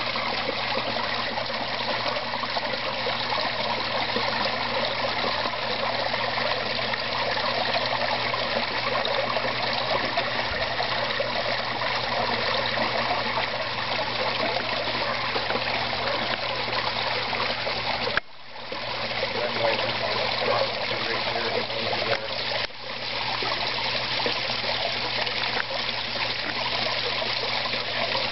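Small waterfall splashing steadily into a garden koi pond, a continuous trickling and splashing of falling water. The sound briefly dips in level twice in the second half.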